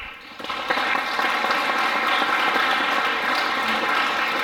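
Audience applauding, swelling over the first second and then steady.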